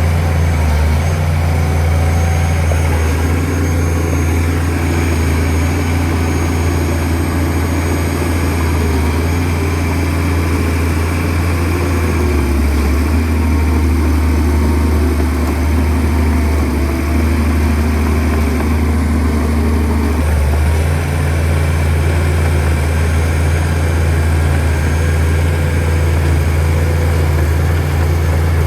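Diesel engine of a Shantui DH17C2 bulldozer running steadily as it pushes dirt, a heavy low hum whose note shifts partway through and returns later on.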